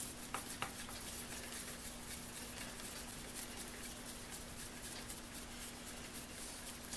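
Faint scraping and a few light clicks near the start from a hex key working a socket head cap screw on a Skil roto hammer's metal housing, over a steady faint hum.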